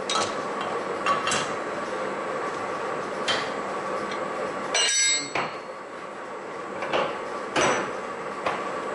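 Steel tool holders clanking as they are swapped on a lathe's quick-change toolpost: several sharp metal knocks, the loudest a ringing clink about five seconds in, over a steady faint hum.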